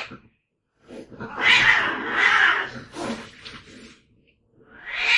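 Domestic cats fighting: a harsh burst of hissing screeches about a second in that fades out, then a second outburst near the end.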